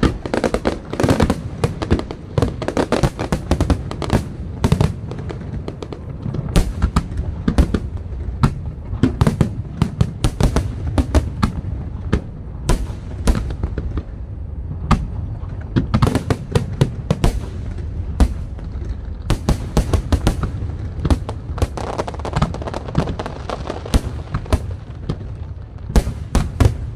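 Aerial fireworks shells launching and bursting in a dense barrage: many sharp bangs a second, overlapping, over a continuous rumble.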